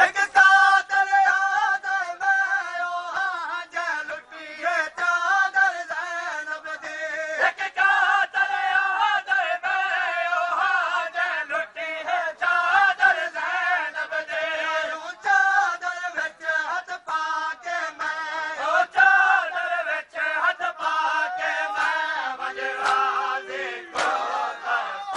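A man chanting a noha, the Shia mourning lament recited at matam, in long, wavering melodic phrases with brief breaks between them.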